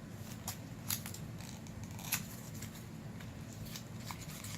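A few short, sharp clicks and light handling noise from a small plastic lipstick sample and its packaging being handled, over a steady low hum.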